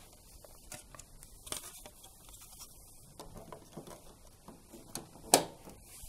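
Bosch washing machine's plastic filter cover being handled and fitted back on: faint rustling and light plastic taps, then one sharp click a little after five seconds in as the cover snaps shut.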